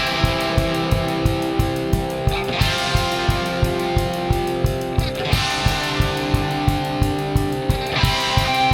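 Background rock music: electric guitar over a steady drum beat of about three hits a second.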